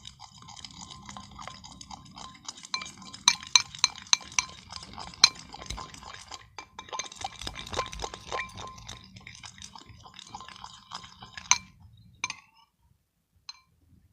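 A spoon stirring a soap-and-toothpaste slime mixture, clinking and scraping against the side of the container, with a quick run of ringing clinks in the middle. The stirring stops about twelve seconds in, leaving a couple of single clicks.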